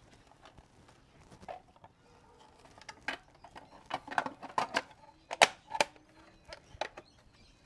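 Hard plastic clicks and knocks as an 18V Ryobi ONE+ battery is fitted into the compartment of a Ryobi ONE+ jump starter and its clear plastic cover is handled. The clicks come in an irregular scatter, the sharpest about five and a half seconds in.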